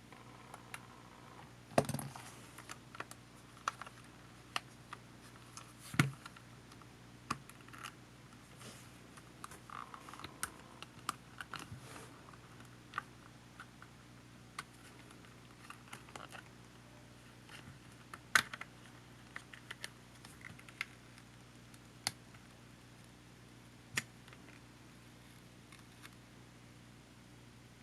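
Irregular small clicks and taps of plastic parts and tools handled while a Panasonic HA-WA10 camcorder is taken apart, with a few sharper knocks about two, six and eighteen seconds in. A faint low steady hum runs underneath.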